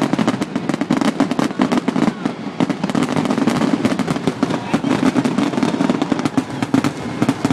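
Fireworks crackling and popping in a dense, rapid run of many small bangs, with no let-up.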